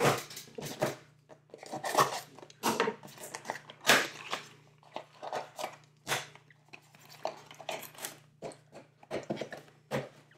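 Cardboard boxes being handled, opened and set down on a wooden table, with packaging rustling as a foil-wrapped chocolate bar is taken out: an irregular string of knocks, scrapes and rustles.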